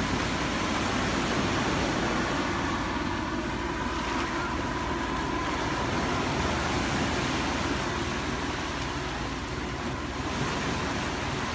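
Pacific Ocean surf breaking and washing up over a sandy shoreline, a steady rushing noise.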